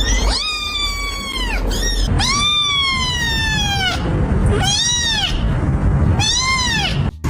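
Domestic cat yowling in a bad mood: five drawn-out calls, the first three long and slowly falling in pitch, the last two shorter and arched.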